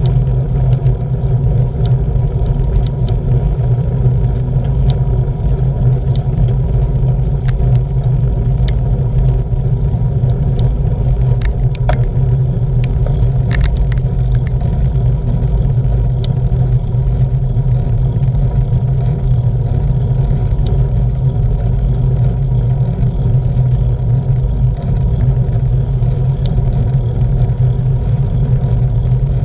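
Steady wind rumble buffeting a bike-mounted action camera's microphone, mixed with tyre and road noise, while cycling at about 15 to 19 mph. A few faint clicks come through, most of them around the middle.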